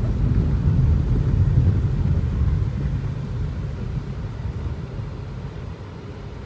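Low rumble of a vehicle driving on the road, dying down over the second half.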